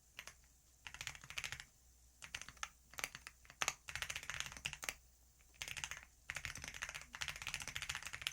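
Typing on a computer keyboard: quick runs of key clicks in bursts, with short pauses of under a second between them.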